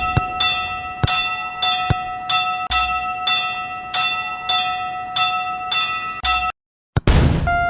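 Railroad crossing warning bell ringing over and over in its "kan-kan" pattern, a few strikes a second. It cuts off suddenly about six and a half seconds in, a short rushing whoosh follows, and a different bell tone starts near the end.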